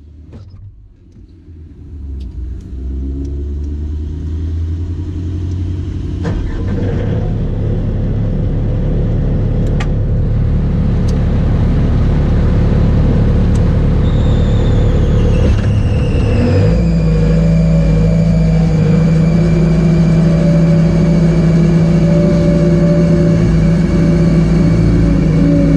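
Bobcat S250 skid steer's diesel engine running, heard from inside the cab. It builds up over the first few seconds. About two-thirds through, its note rises and settles into a steady hum with a high whine above it.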